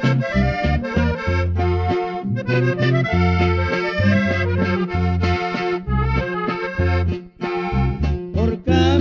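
Norteño music: a button accordion plays the melody over a repeating bass line, with no singing.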